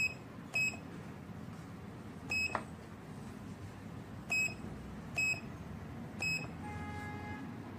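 Standalone access-control keypad giving a short high beep with each key press as a password is keyed in while programming a user, about six beeps at irregular spacing. Near the end comes a longer, softer tone of lower pitch.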